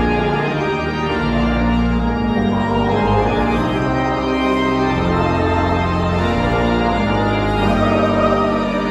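Church pipe organ playing a hymn in held chords over deep pedal notes.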